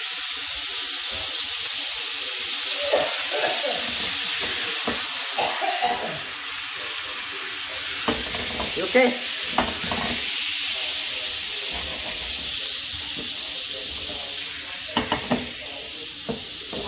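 A soy sauce and sake sauce sizzling and bubbling in a hot frying pan, a steady hiss as the liquid reduces in the pan the fish was seared in. A few sharp clicks come about halfway through and again near the end.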